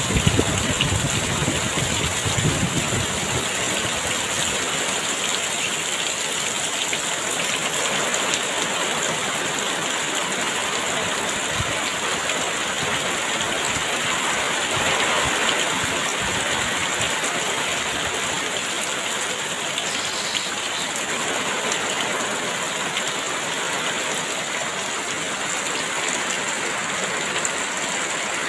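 Heavy rain falling steadily, an even hiss, with a low rumble of wind in the first few seconds.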